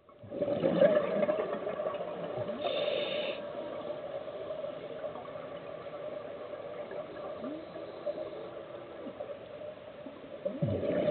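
Scuba divers' exhaled air bubbling and gurgling underwater, muffled as heard through an underwater camera housing, over a steady hum. The bubbling is loudest about a second in and again near the end.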